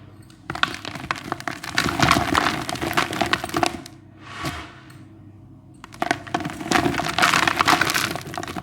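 Dry, gritty white cement chunks crumbling and crushing with dense crackling, in two long bouts separated by a short pause.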